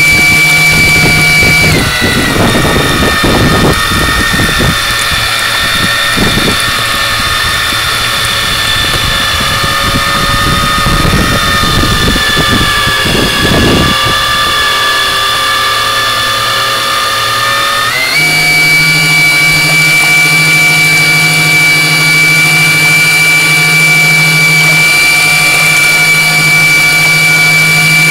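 Electric drive motor of a radio-controlled model fireboat whining steadily. Its pitch drops about two seconds in and climbs back about eighteen seconds in as the throttle changes. Bursts of low rumbling noise come and go during the lower-pitched stretch.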